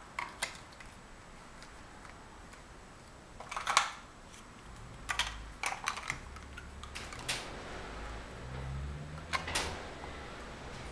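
Large plastic Mega Bloks First Builders blocks clicking and knocking as they are picked from a pile and pressed together. The clicks are scattered and irregular, loudest in a cluster a little before four seconds in.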